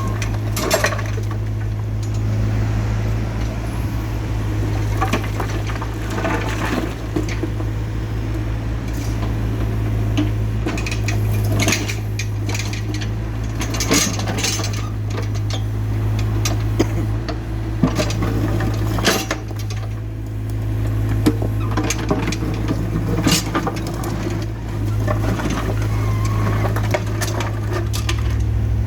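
Excavator's diesel engine running steadily, with scattered sharp clinks and knocks of the bucket against concrete and concrete pieces.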